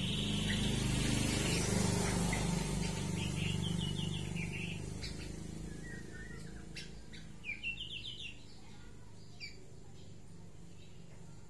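White-rumped shama giving short runs of quick, high chirping notes, with a louder flurry a little past halfway and a single note later on.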